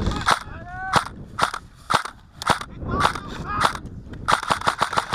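Airsoft guns firing: single shots about every half second, then a fast full-auto burst of about eight shots a second starting about four seconds in.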